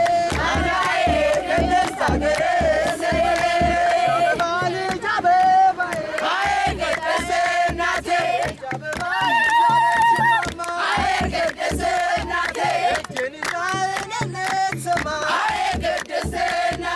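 A crowd of girls and women singing together and clapping to a steady beat struck on a kebero, the large double-headed drum carried in the procession.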